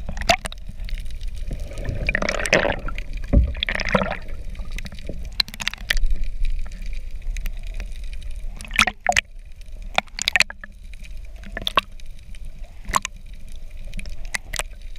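Water heard through a GoPro held below the surface in its waterproof housing: a muffled low rumble of moving water with some bubbling, and sharp clicks and knocks scattered throughout.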